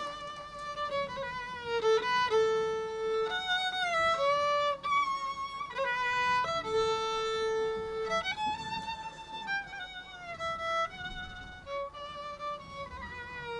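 A fiddle playing a Slovak folk melody as a single line of held notes, with slides and ornaments between them.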